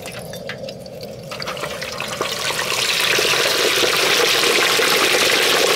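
Hot oil in a propane turkey fryer pot sizzling as a whole turkey is lowered in: scattered crackles at first, then a hiss that swells over a couple of seconds into a loud, steady, spitting sizzle.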